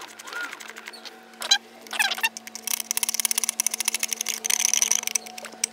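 Background music with chirping sounds, and a rapid run of clicks lasting about two and a half seconds through the middle.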